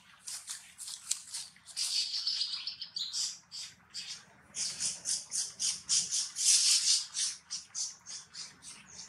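Baby long-tailed macaque crying: a loud, rapid series of short high-pitched squeals, about three or four a second, a hungry infant's distress cry.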